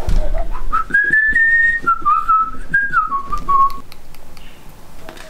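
A person whistling a short tune of a few clear notes that rise, hold, and then step down in pitch.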